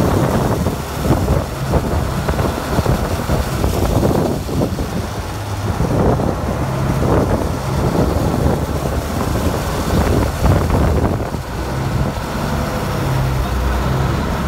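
Canal passenger boat's engine running steadily at speed, with water rushing past the hull and wind buffeting the microphone.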